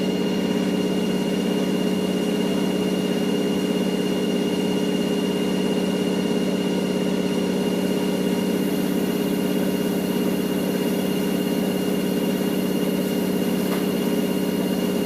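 Fisher & Paykel GW712AU top-loading washing machine on its final spin at 800 RPM: a steady motor hum with a thin high whine over it.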